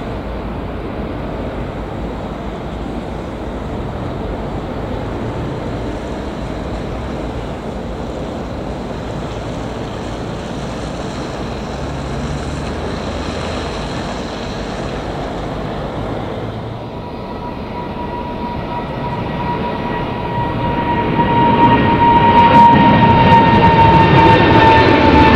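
Jet airliner engines on takeoff climb, a steady rumble as one climbs away. Then a British Airways Boeing 777 climbing out overhead grows much louder, its engine whine a high tone that slowly falls in pitch.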